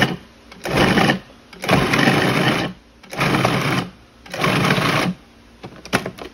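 Food processor run on its pulse setting, its blade chopping a coarse raw salmon mixture: about five short bursts of motor and blade noise, each half a second to a second long with short gaps between, then a couple of light clicks near the end.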